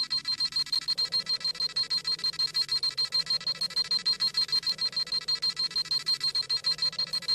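Dragon Ball Z scouter sound effect: a rapid, steady electronic beeping at about eight high-pitched beeps a second, the scouter scanning a power level.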